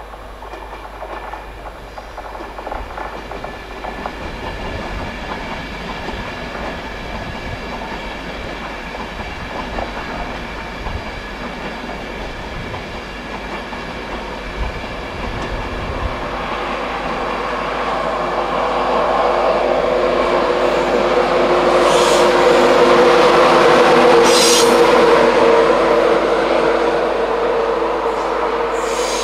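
British Rail Class 91 electric locomotive with its InterCity 225 train approaching, growing steadily louder with wheels clattering over rail joints and a steady hum building in the second half. It is loudest about three quarters of the way through, with a couple of sharp crackles, and eases only slightly near the end.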